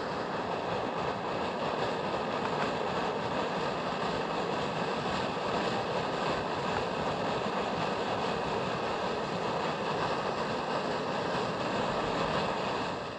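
Steady rushing of wind and surf on an open seashore.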